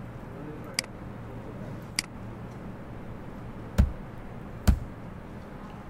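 Computer mouse clicking: two light clicks, then two heavier clicks with a low thump about a second apart, over a steady room hum.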